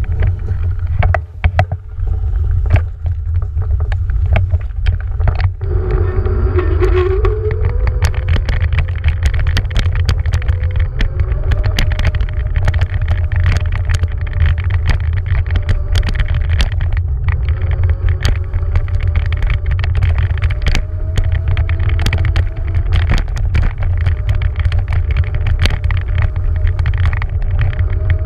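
Beaster BS11 electric scooter's motor whine rising as the scooter pulls away about five and a half seconds in, then holding a steady pitch while riding over sand. Heavy wind rumble on the camera microphone and constant clicks and rattles from the frame run underneath.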